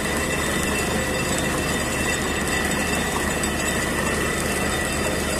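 Borewell drilling rig running steadily while water and spray blow up out of the borehole around the drill pipe, a sign that the bore has struck water at about 200 feet.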